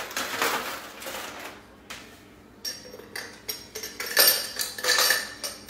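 Ice cubes rattling as they are grabbed by hand from a freezer and dropped into a clear plastic cup: rustling first, then a quick run of clicks and clinks in the second half.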